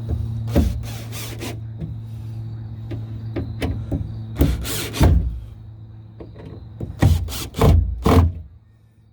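A run of short knocks and rattles as a replacement door speaker is pressed and fastened into a pickup door, over a steady low hum that fades out near the end.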